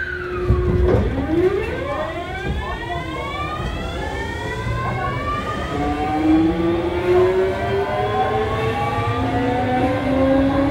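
Kintetsu 7000 series train's Mitsubishi GTO-thyristor VVVF inverter and traction motors whining as the train accelerates away from a stop. A falling tone in the first second gives way to several tones climbing in pitch together.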